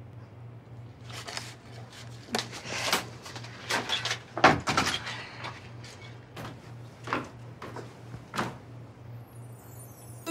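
A string of irregular knocks and clatters, about a dozen, close together in the first half and sparser later, over a faint steady low hum.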